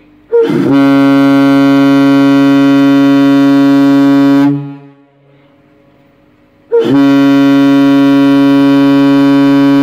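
Ship's whistle of the container ship MV Palung Mas sounding long, steady blasts with a low tone and many overtones: one of about four seconds, then after a short gap a second that is still going at the end. These are long blasts of a three-long-blast salute to seafarers.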